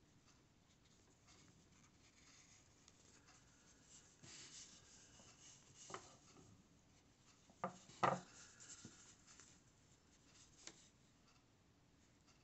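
Faint rubbing and scratching of yarn drawn through crocheted fabric with a metal yarn needle while sewing the piece. A few short sharp clicks come through, the loudest about eight seconds in.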